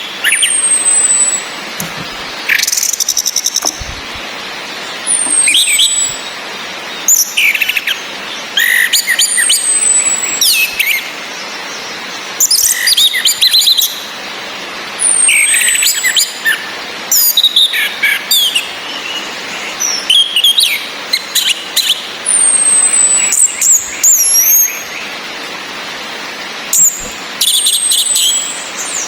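Orange-headed thrushes (anis merah): a female's thin, high falling whistle call repeated every two to three seconds, mixed with short bursts of a male's song, over a steady hiss of rain.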